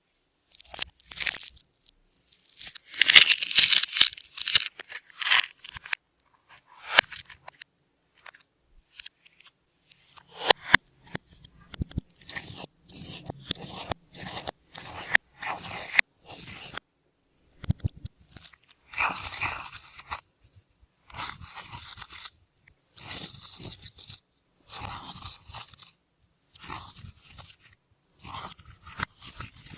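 Slime being mixed by hand with glitter and makeup worked into it: sticky crackles and pops, loud at first, then in short bursts about once a second.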